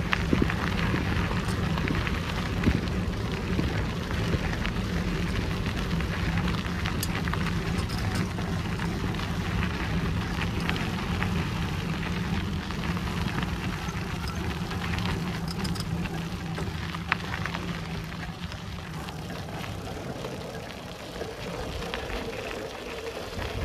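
Bicycle rolling along a forest track: steady tyre noise with scattered small crackles over a low rumble, easing off a little near the end.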